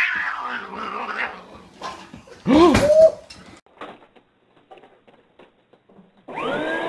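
Pets scuffling, then a short, loud yelping cry that rises and falls in pitch, followed by a few light taps. A steady droning hum starts near the end.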